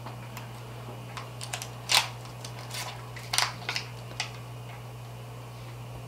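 Scattered sharp clicks and crinkles of small plastic packaging being opened: a new Q-site needleless IV connector coming out of its wrapper. A steady low hum runs underneath.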